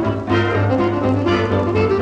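Jazz band music with brass playing, a strong accent about once a second.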